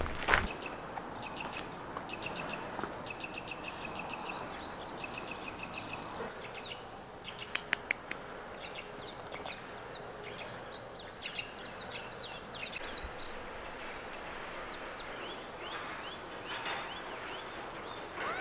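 Small birds chirping in short repeated calls over a faint, steady outdoor hiss, with a few sharp clicks about seven and a half seconds in.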